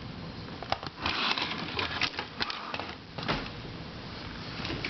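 Puzzles being handled and moved about: scattered light clicks and knocks with bits of rustling.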